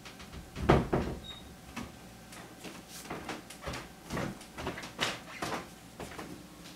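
Cut-nib calligraphy pen scratching on paper in a string of short strokes as Naskh letters are written. The loudest stroke comes under a second in, with a dull knock.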